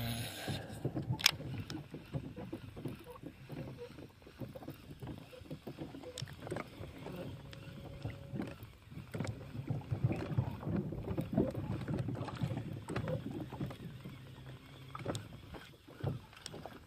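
Water slapping and washing against the hull of a small fishing boat in the wind, with scattered light knocks and clicks throughout.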